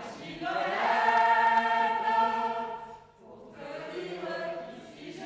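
Choral singing: voices holding long notes, swelling loudest in the first couple of seconds, breaking off briefly about three seconds in, then singing on more softly.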